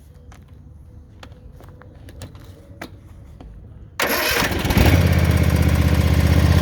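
A few faint clicks, then about four seconds in the Kawasaki V-twin engine of an Ariens Icon XD zero-turn mower cranks briefly on jump-starter power, catches within a second and settles into a steady run. The dead battery has been bypassed by the booster pack.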